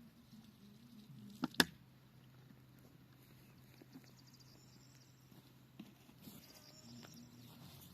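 Honeybees buzzing in the apiary: a low drone whose pitch wavers as bees fly near and away. Two sharp clicks about a second and a half in.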